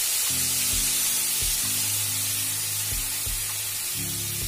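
Tamarind water sizzling and hissing in hot oil and tempering in a kadai, a loud steady sizzle that slowly eases.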